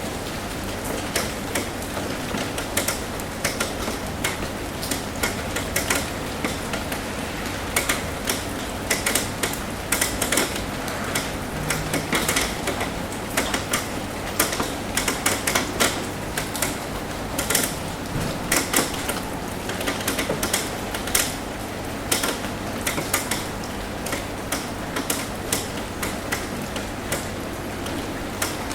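Rain tapping on a roof: a steady patter with frequent, irregular sharp taps of drops hitting the surface.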